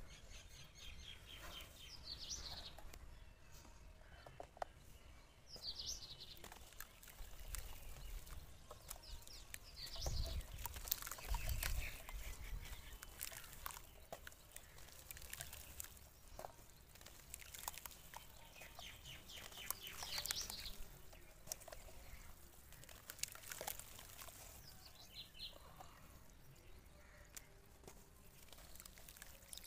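Dry red dirt being broken by hand and crumbled into a basin of water, heard as a run of light crackles and crumbles, with a couple of low thuds about ten seconds in. Birds chirp now and then in the background.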